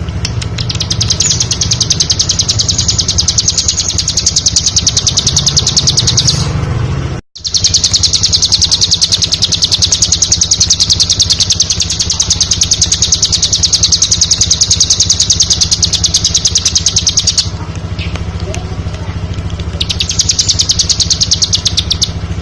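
Bar-winged prinia (ciblek) singing a long, rapid trill of fast-repeated high notes over a steady low hum. The song breaks off abruptly about seven seconds in, resumes at once, pauses again a few seconds before the end, then returns briefly.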